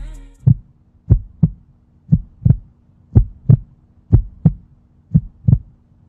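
Heartbeat sound effect: pairs of low thumps, lub-dub, about once a second over a faint steady hum.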